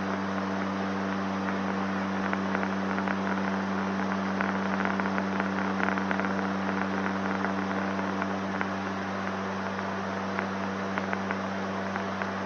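Steady drone of a Gulfstream Turbo Commander's twin turboprop engines and propellers heard in the cockpit, an even hum with no beating, as the propeller synchroniser is on. Faint crackling rides over it in the middle.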